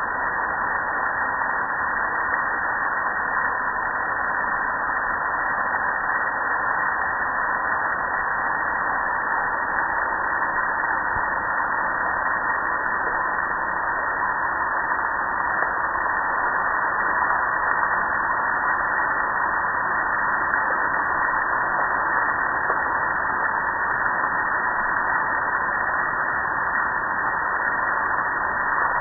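Steady rush of water spraying onto a gas grill and splashing off its metal lid and control panel.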